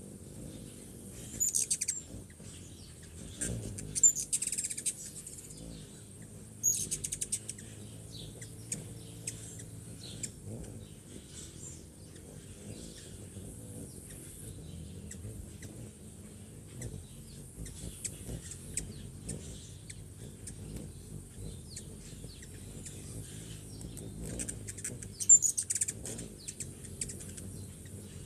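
Hummingbirds at a feeder giving high, squeaky chirps and rapid chittering in several short bouts, the loudest about four seconds in and again near the end.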